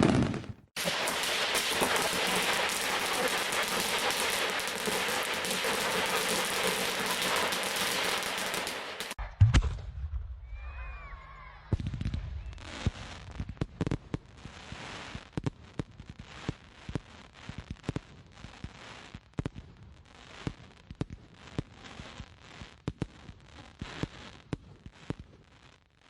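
Fireworks: a dense, continuous crackling for about eight seconds that stops abruptly, then a low thud followed by a long run of scattered sharp pops and bangs, mostly fainter.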